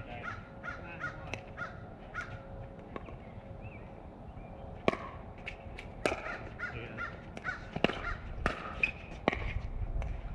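Pickleball rally: paddles striking the plastic ball in a string of sharp pops, irregularly spaced, the loudest about five seconds in.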